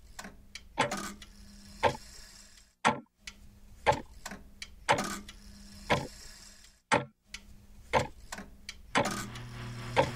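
Clock ticking about once a second, each tick ringing on briefly, over a faint low steady drone that deepens near the end.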